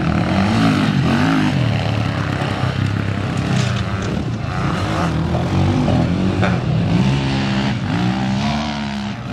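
Sidecar motocross outfits' engines revving hard under load on a steep dirt climb, the pitch rising and falling again and again.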